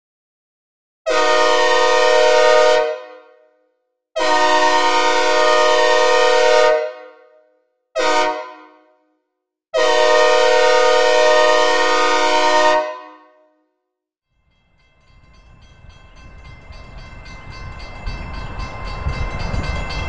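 Synthesized recreation of a Nathan K5H/K5L 'raised letter' five-chime diesel locomotive air horn, sounded dry and in place in the long, long, short, long crossing pattern, each blast trailing off in reverb. From about three-quarters of the way in, the rumble of an approaching train rises steadily, with faint horn tones over it.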